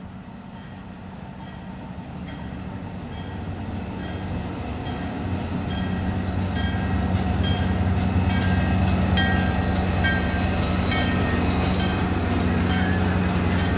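A train approaching and passing close by: a low steady hum grows louder over about seven seconds, then holds while wheels click over the rail joints again and again.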